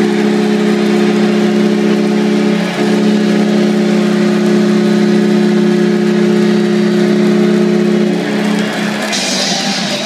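Utica Comets' arena goal horn blowing one long, steady blast, with a brief break nearly three seconds in, then stopping about eight seconds in. A noisier wash of sound takes over near the end.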